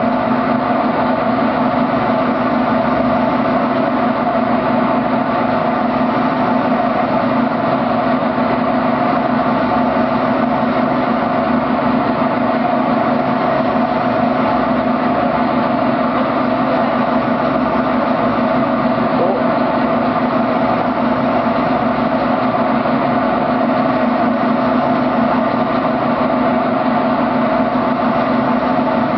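Steady mechanical hum and rumble at a constant loud level, with no change in pitch or rhythm.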